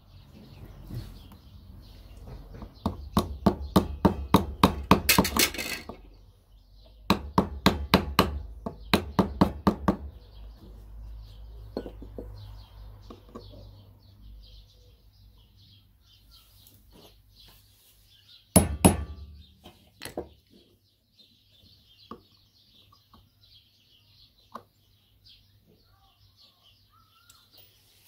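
Quick runs of sharp metal taps, about five a second with short pauses, as the sheet-metal tabs of a Mercedes auxiliary heater water pump's housing are pressed shut around the body, then a single louder knock. Birds chirp faintly in the background.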